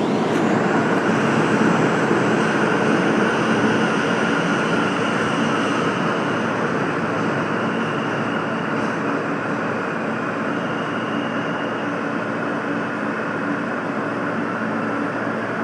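New York City subway F train standing at a station: a steady hum and whine from the car's ventilation and electrical equipment, easing slightly in level.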